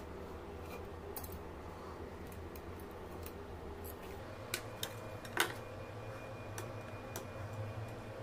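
Scattered small clicks and taps as a katana replica's wooden scabbard and its metal end ring are handled on a workbench, with three sharper clicks about four and a half to five and a half seconds in, over a low steady hum.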